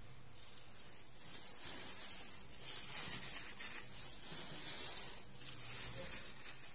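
A thin plastic food glove crinkling and rustling as a hand scoops sliced cucumber off a wooden cutting board into a ceramic bowl: an irregular, hissy rustle with louder handfuls now and then.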